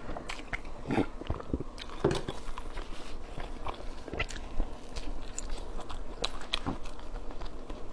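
A person chewing a mouthful of large steamed bun close to the microphone: irregular mouth clicks and smacks, with a few louder bites or smacks about 1, 2 and 4.5 seconds in.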